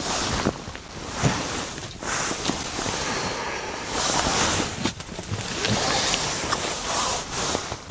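Wind rushing against the ice-fishing tent: a steady noise that swells and eases, with a few light knocks.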